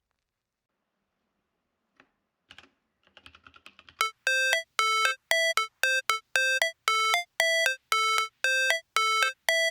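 Near silence at first, then a few faint clicks, then a high electronic ringtone-like beep repeated about twice a second from about four seconds in: the intro of a music track.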